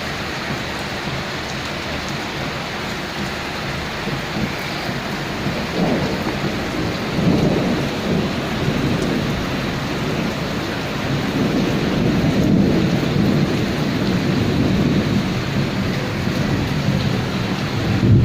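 Steady heavy rain, with rolling thunder rumbling in low waves from about a third of the way in and again near the end.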